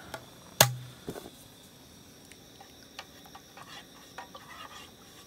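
A bottle of liqueur set down with one sharp knock about half a second in, followed by faint, scattered small clicks and taps.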